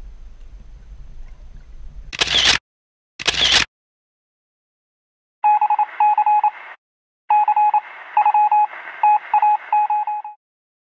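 A low rumble, then two short loud bursts of noise about two and three seconds in. From about halfway, an electronic beeping sound effect: rapid beeps on one steady tone, in two runs with a short gap between.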